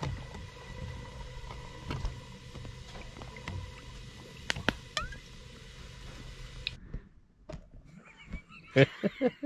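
A drink poured from a bottle over ice into a glass, with a few sharp clicks of ice over a steady low background hum. After a cut, rustling and a cluster of loud knocks near the end.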